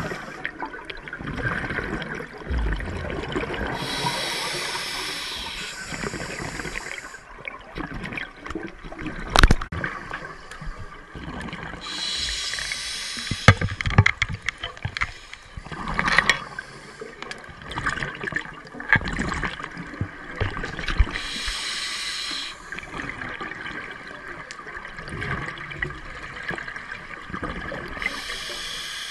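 Scuba diver's regulator heard underwater: exhaled bubbles rushing out in bursts of a second or three, four times, roughly every eight seconds. Scattered clicks and knocks sound between the breaths, with one sharp knock about nine seconds in.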